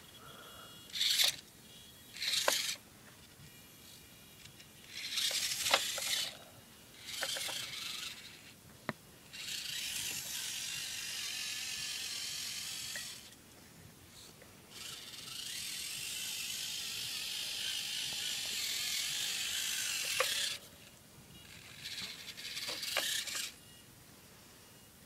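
Losi Micro Trail Trekker RC crawler's small electric motor and gear train whirring as it is driven, first in short bursts of throttle, then in two longer runs of several seconds, then one more short burst near the end. A few sharp clicks of the crawler knocking on rock come between the runs.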